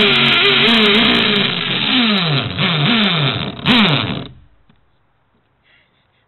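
Electric power tool motor running loud while cutting into a phone, its pitch wavering under load, then switched on and off several times so it winds down in quick falling sweeps before stopping about four seconds in.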